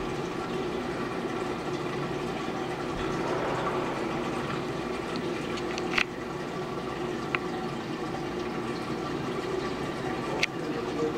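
Marine aquarium's water circulation running: steady flowing, trickling water with a steady pump hum. Three short sharp clicks in the second half.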